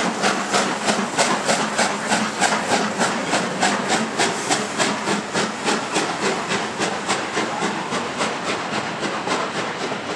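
Exhaust beats of an LMS Stanier Black 5 two-cylinder 4-6-0 steam locomotive working hard under acceleration, coming evenly at about four a second and growing a little fainter as it draws away.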